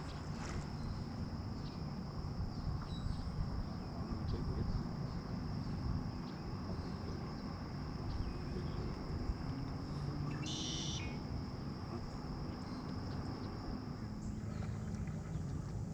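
Outdoor lakeside ambience: a low rumbling haze with a steady high-pitched insect drone. A short bird call sounds about ten and a half seconds in.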